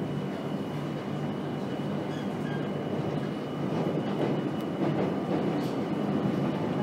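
Madrid Metro Line 6 train running through a tunnel: a steady rumble of wheels on the rails with a faint, thin high whine, growing slightly louder in the second half.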